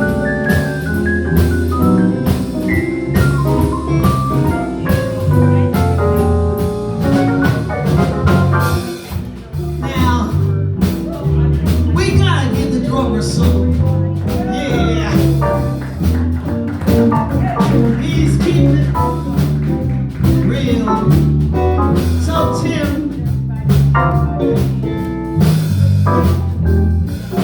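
Live blues band playing an instrumental stretch: drum kit keeping a steady beat under guitar and keyboard lines, with some bent notes around the middle.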